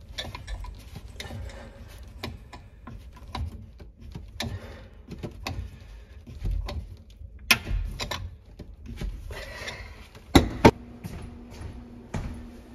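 Tongue-and-groove pliers working a threaded PVC male adapter tight into a female adapter: scattered clicks and scrapes of the metal jaws on the plastic pipe, with two sharp knocks about ten seconds in.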